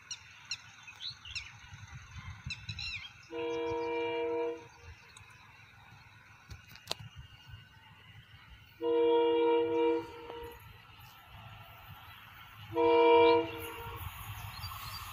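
Indian Railways locomotive horn sounding three blasts of a second or two each, every blast louder than the last as the train approaches. Birds chirp in the first few seconds.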